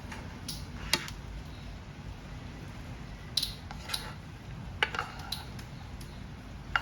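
A metal utensil clinking against a dish or pan, in about seven sharp, separate clinks at uneven intervals.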